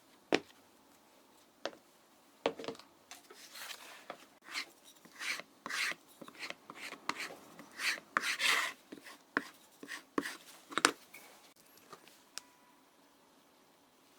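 Leather being worked with hand tools: sharp clicks and taps mixed with short scraping, rubbing strokes, busiest in the middle and thinning out near the end.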